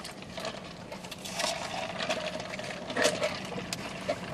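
Close-up chewing and mouth noises from eating a burger, with scattered small clicks and rustles over a faint steady hum.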